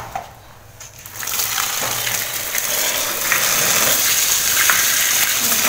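Water gushing steadily into a plastic basin of fish, starting about a second in.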